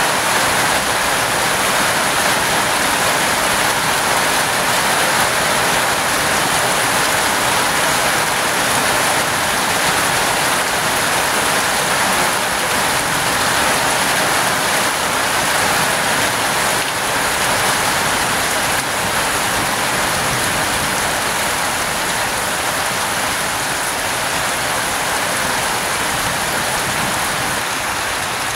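Heavy rain pouring down steadily, with water streaming off a roof edge; an even, unbroken hiss.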